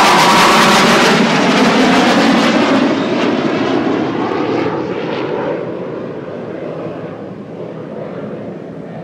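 Two Blue Angels F/A-18 Hornet jets passing low, their jet engine noise loudest at the start. It then fades steadily and loses its hiss over the next several seconds as they fly away.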